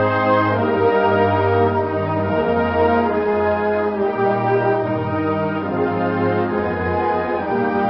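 Brass instruments playing slow, held chords that change every second or two, with no drums heard.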